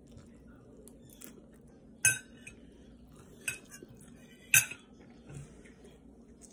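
A metal fork clinking against a dish as she takes bites: three sharp clinks about two, three and a half and four and a half seconds in, the last the loudest, with a fainter tap a little after.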